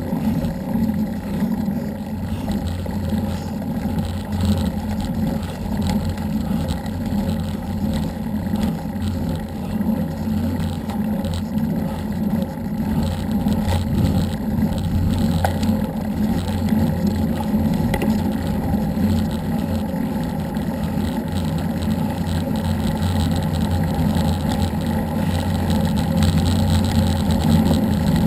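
Steady low rumble of wind buffeting an action camera's microphone on a moving bicycle, mixed with tyre noise on asphalt. It grows a little louder near the end.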